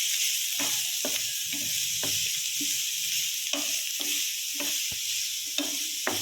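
Sliced onions, garlic and ginger sizzling in coconut oil in a pan while being stirred, with a scrape or knock against the pan about every half second.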